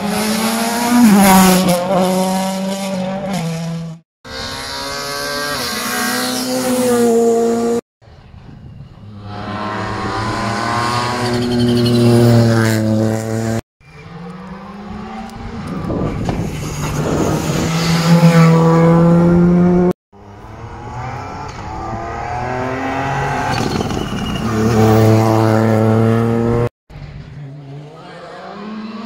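Rally cars passing one after another at full speed on a tarmac stage, about six passes in a row. In each, the engine's note climbs and steps down as the driver shifts gear, getting louder as the car approaches, then cuts off abruptly where the next pass begins.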